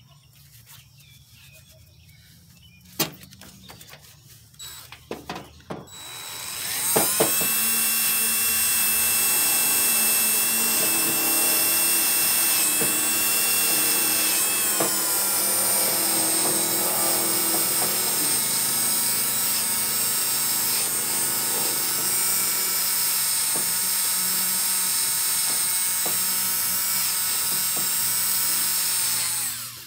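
DeWalt DCD771 cordless drill spinning a wire wheel brush on a battery cable terminal, cleaning the metal. A few knocks come first, then the drill starts about seven seconds in with a steady whine that dips slightly in pitch partway through and stops suddenly near the end.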